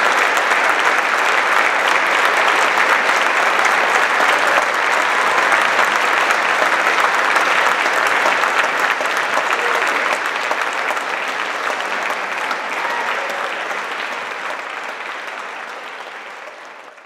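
Concert-hall audience applauding, a dense steady clapping that gradually fades out over the last several seconds.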